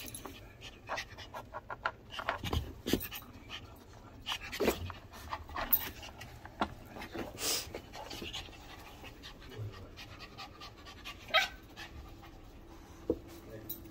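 A dog panting while it noses at a plastic treat-puzzle toy. Irregular light clicks and knocks come as the toy's covers and pegs are pushed about.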